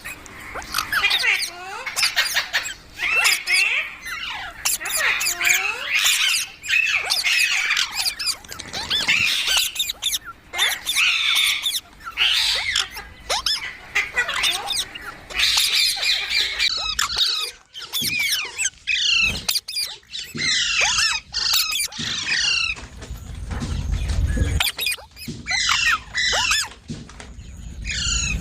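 A green parrot squawking and chattering, with many quick shrill calls in a row. A low rumble joins briefly near the end.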